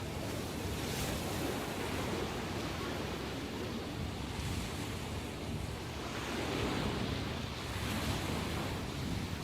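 Ocean surf after a typhoon: waves breaking and washing in, swelling and easing every few seconds, with wind rumbling on the microphone.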